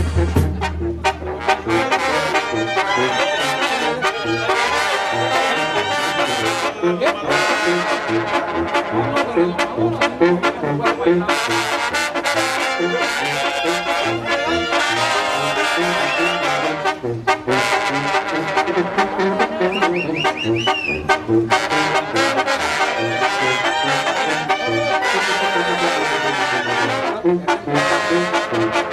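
Mexican street brass band playing: trumpets and trombones carry the tune over a sousaphone bass line that pulses steadily underneath.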